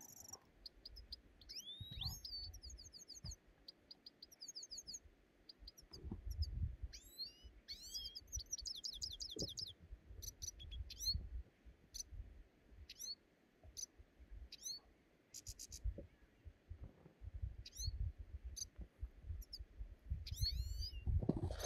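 Small birds chirping again and again in quick, sweeping high chirps. Under them come dull low thuds and rustling as snow is pushed off a tarp with a wooden pole.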